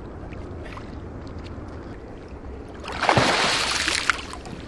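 A big sturgeon thrashing at the surface: a loud splash of churned water about three seconds in, lasting a second or so before easing off.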